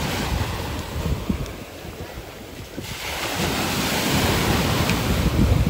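Sea surf washing onto a beach, with wind rumbling on the microphone, as a swimmer splashes and wades through the shallow water. The surf hiss grows louder about halfway through.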